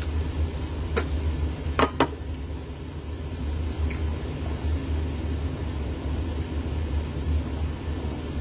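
A steady low hum of a kitchen appliance, with three sharp clicks about one and two seconds in as an egg is cracked and separated over a glass.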